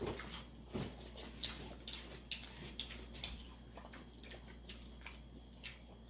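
Faint chewing and crunching on battered onion rings, a scatter of small crisp clicks.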